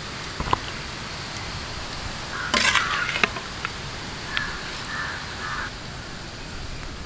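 Outdoor rural background with crows cawing, a short run of calls about four to five and a half seconds in. A brief louder noisy burst comes near the middle, along with a few light clicks.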